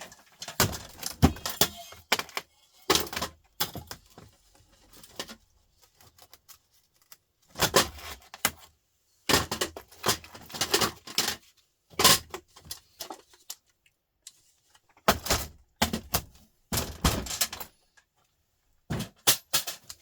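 Small pieces of scrap metal and parts clattering and clinking as they are handled and dropped, in short irregular bursts of rattling knocks.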